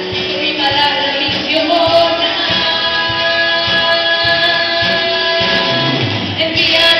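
Live band playing a song: women singing a held melody in harmony over acoustic guitar, keyboard, electric bass and drums.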